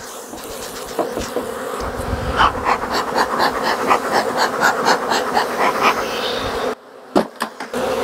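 Mass of honeybees buzzing loudly over an open hive just after being shaken into it, with a quick, even run of bee-smoker bellows puffs. The sound drops away suddenly near the end.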